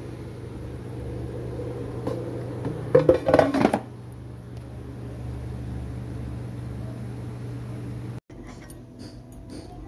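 Air fryer running with a steady low hum; about three seconds in, its basket drawer clatters loudly as it is slid back into the machine.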